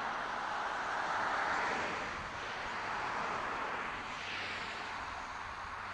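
A steady rushing noise that swells and eases over a few seconds, with a faint low hum beneath it.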